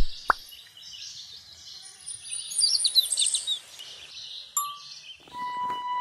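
Cartoon-style birdsong sound effect: two quick pops at the start, then a short run of high chirps about two and a half seconds in over a faint hiss, and a single ding about four and a half seconds in. A steady high tone starts near the end.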